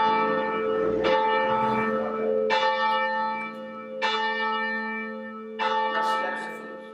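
A single church bell, rung by rope and chimed rather than swung full circle, struck evenly about every second and a half, four strokes, each ringing on into the next. The steady spacing of the strokes shows the bell under good control.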